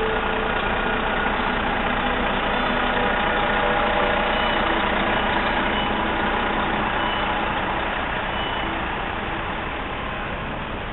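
Steady city street noise with vehicle engines running.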